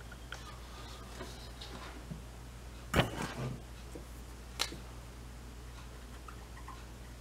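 Two sharp clicks of hand tools and test leads being handled on a workbench, the louder about three seconds in and a smaller one a second and a half later, with a few faint ticks, over a steady low electrical hum.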